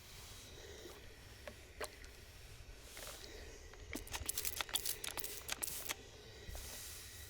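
Steam iron working over clothing on an ironing board: soft rubbing and hiss, a few scattered clicks, and about two seconds of rapid crackling in the middle.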